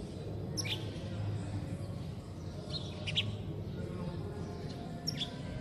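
Birds chirping in short, high calls, four in a few seconds, over a steady low background hum.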